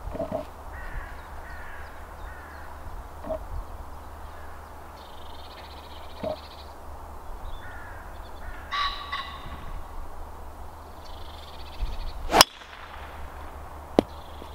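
A driver strikes a golf ball off the tee with a single sharp crack about twelve seconds in. Birds call now and then throughout, over a low rumble of wind on the microphone.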